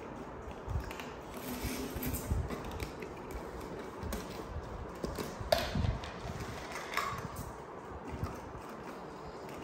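Light handling noises of small plastic bottles and a funnel: scattered clicks and knocks with soft low thumps, the sharpest click about five and a half seconds in and another about seven seconds in.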